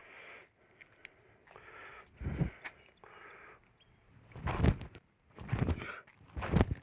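Footsteps scuffing and thudding on a concrete boat ramp, a few short steps about a second apart in the second half, as a man steps into a sidearm stone-skipping throw.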